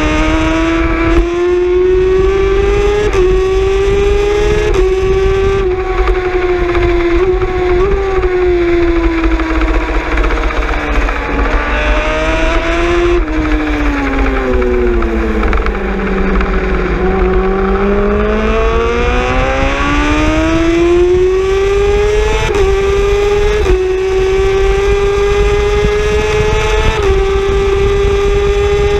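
Racing motorcycle engine heard from on board at high revs, pulling hard with quick upshifts that briefly drop the pitch. Around the middle the note falls away as the bike slows for a corner, then climbs again through several more quick upshifts at full throttle.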